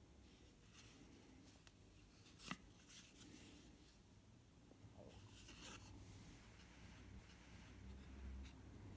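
Faint handling of a small concertina-folded paper book: soft rustles and light taps of its pages and covers, with one sharper tap about two and a half seconds in.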